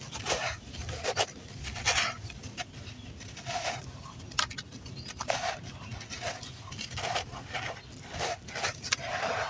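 Dry red dirt crunching and crumbling in irregular gritty crunches, with a few sharper crackles now and then.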